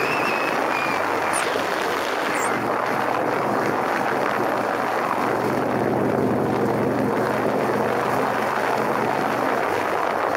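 Motorcycle engine running steadily while riding, under heavy wind rush on the microphone.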